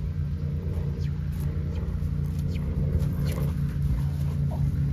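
Steady low machine hum, like a motor running, with a few faint clicks over it.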